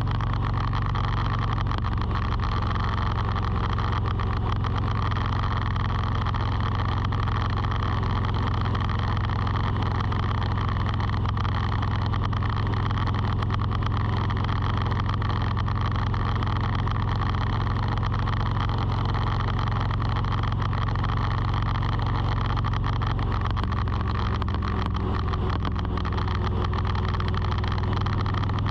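Steady motor hum with a strong low tone and a stack of even tones above it, holding constant throughout.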